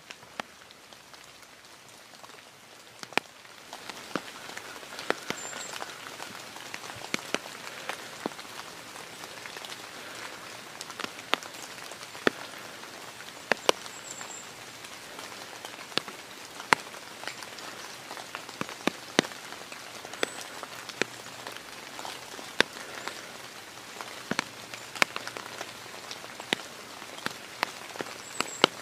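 Steady rain falling through woods, with irregular sharp ticks of drops striking close by; it gets louder about four seconds in.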